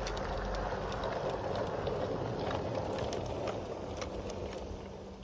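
Garden-railway model train rolling along the track, a steady rumble of wheels on rail with scattered clicks as they cross rail joints and points. It grows louder and then fades as the train moves away.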